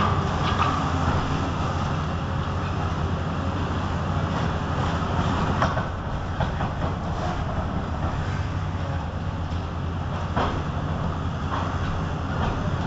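Tracked demolition excavator's diesel engine running steadily under load while its arm breaks up a concrete bridge deck. A few sharp cracks and knocks of breaking concrete come through, one about five and a half seconds in and two more past the ten-second mark.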